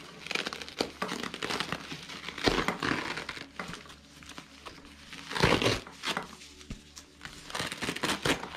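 Packaging crinkling and rustling in irregular bursts as the inside of a new camera bag is handled, louder about two and a half seconds in and again about five and a half seconds in.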